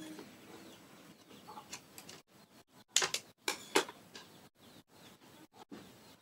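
A few sharp clicks and knocks from wires and connectors being handled inside an open metal amplifier chassis, loudest in a quick cluster just past the middle.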